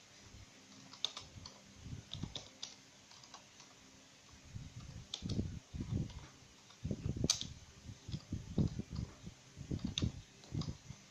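Typing on a computer keyboard: irregular key clicks, one sharper click about two-thirds of the way in, mixed with low dull bumps.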